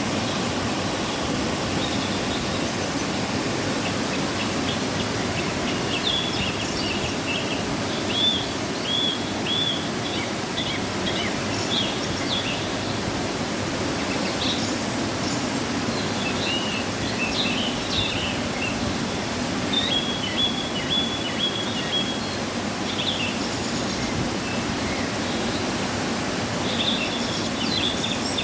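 Waterfall after rain, falling water making a steady, even rush. Small birds chirp on and off over it, most busily about halfway through and again near the end.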